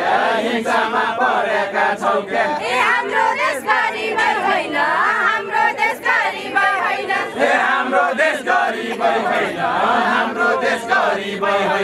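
Group of young men and women singing a Far-Western Nepali nyaulya khel folk song together in chorus, many voices overlapping without a break.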